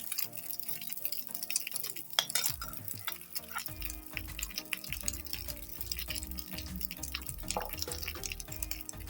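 Background music, with a deep bass line coming in about four seconds in, over scattered small clicks and liquid sounds of kitchen work.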